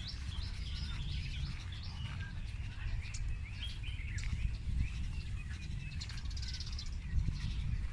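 Birds chirping and calling, starting with a quick run of short rising chirps and then scattered calls, over a steady low rumble.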